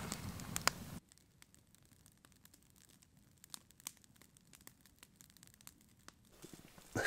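A plastic food bag crinkling for about a second, then a wood campfire crackling faintly with sparse small pops.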